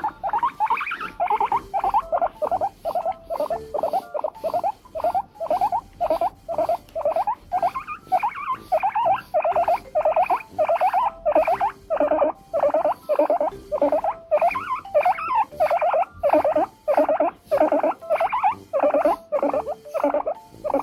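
Guinea pig calling in a long, steady series of short squeaks, about two to three a second.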